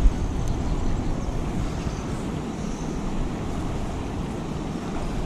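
Steady rush of a river running high and fast with runoff, with wind buffeting the microphone.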